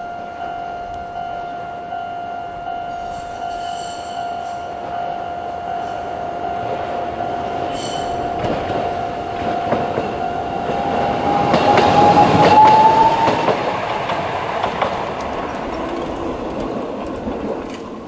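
Level crossing alarm on the Toei Arakawa Line sounding its standard kan-kan at a slow tempo, while a tram passes. The tram's running noise swells to a peak about twelve seconds in with a short rising whine, then fades. The alarm stops near the end.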